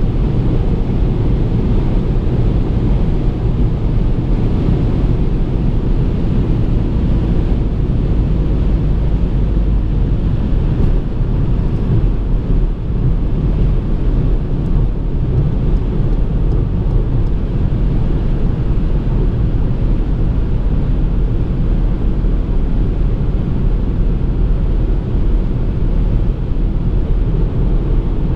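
A 2019 Ford Fiesta's 1.0 EcoBoost three-cylinder turbo petrol engine pulling steadily at road speed, blended with tyre and wind noise. The noise sits low and holds an even level with no gear changes or sudden events.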